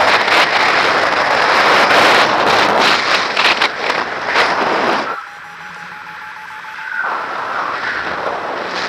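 Wind rushing and buffeting on the microphone of a harness-mounted camera on a paraglider climbing on a winch tow. About five seconds in the rush drops off sharply, leaving a quieter hiss with a faint steady tone for about two seconds before the wind rises again.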